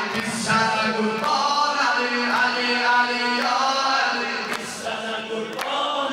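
Men chanting a Shia devotional chant (mersiyye) in praise of Ali, sung through handheld microphones with a lead voice and others joining. Two sharp hits come near the end.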